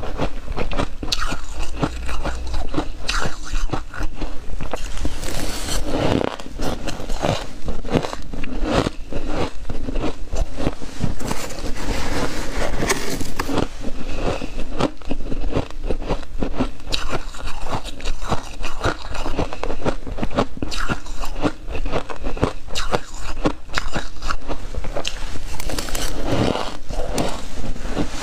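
Freezer frost ice being bitten and chewed in a steady stream of crisp crunches, with a metal spoon scraping through the frost.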